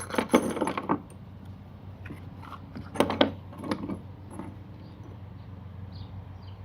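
Small loose metal hardware (Allen wrenches, screws and bolts) clinking and rattling as it is handled, in a burst during the first second and again about three seconds in. A steady low hum runs underneath.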